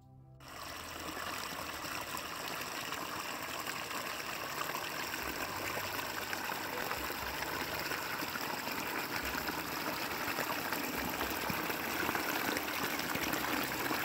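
Small creek waterfall pouring over leaves and twigs into a foaming pool: a steady rush of splashing water that starts abruptly about half a second in.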